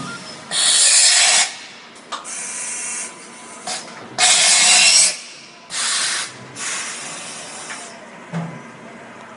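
Automatic tool change on a Yang Eagle SMV 600 vertical machining center, its umbrella-type tool carousel moving in to the spindle and back out. Five loud bursts of compressed-air hiss, each half a second to a second long, are separated by short mechanical clunks.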